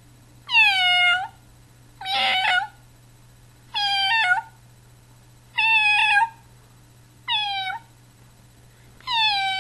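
A series of six high, kitten-like meows, about one every one and a half to two seconds, each sliding down in pitch. The second meow is rougher and raspier than the others.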